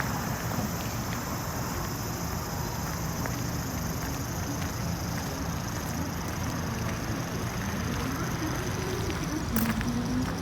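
Steady outdoor background: a low rumble with a high, steady insect-like drone above it, and one sharp click near the end.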